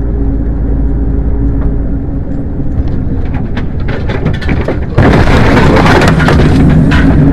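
Engine and road noise inside a moving vehicle's cab, with scattered rattles. About five seconds in, a sudden much louder rush of noise cuts in and carries on.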